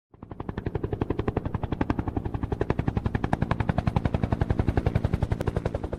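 Helicopter rotor chopping in a rapid, even beat, fading in over the first half second.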